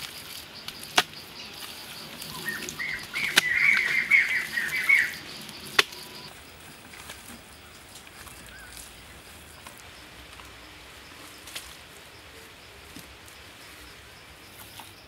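A bird chattering in quick high notes for about two and a half seconds, with three sharp clicks spaced through the first six seconds. A faint steady high tone cuts out about six seconds in, leaving quieter outdoor background.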